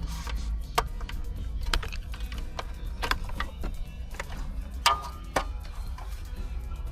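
Irregular clicks and knocks of hand tools, screws and plastic dashboard trim being handled as the dash is taken apart, over a steady low hum.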